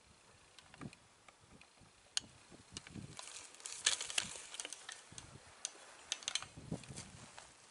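Light clicks and rustling close to the microphone, scattered at first and busiest from about three to four and a half seconds in: handling noise of a person shifting in dry grass beside the camera.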